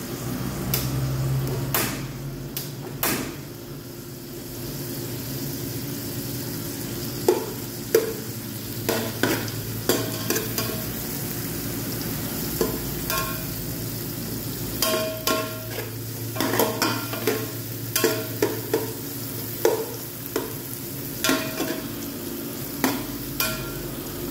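Sliced onions and garlic sizzling in oil in an aluminium pot while a metal spoon stirs them, scraping and clinking against the pot. The clinks come often in the second half, some with a short ring from the pot.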